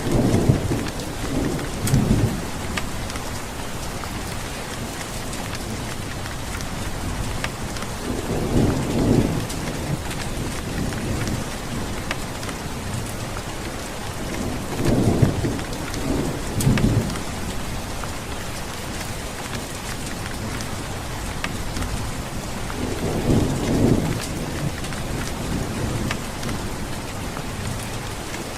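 Steady heavy rain with low rolls of thunder rumbling four times, near the start and at about 8, 15 and 23 seconds in.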